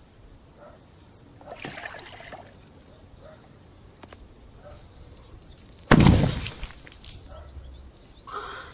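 Short high electronic beeps coming faster and faster, like a countdown, then a sudden loud splattering burst as red paint splashes over a person and a canvas, trailing off.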